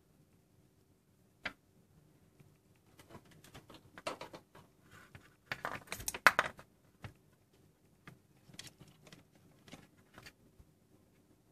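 Hands handling a plastic digital sport wristwatch: a single click about a second and a half in, then a busy run of clicks and rustles in the middle, and a few lighter clicks near the end, over a faint steady hum.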